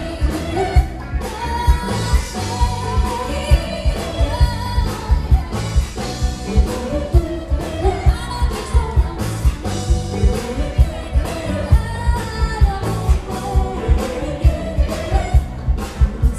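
Live band playing amplified dance music over a PA, with a lead vocalist singing over a steady kick-drum beat of about two beats a second.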